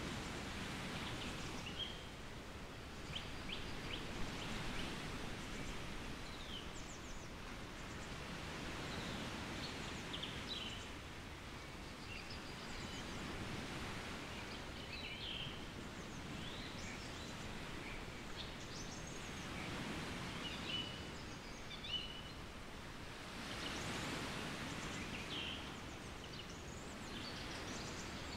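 Woodland birds calling and singing in short, scattered chirps over a steady rustling outdoor background that swells a little near the end.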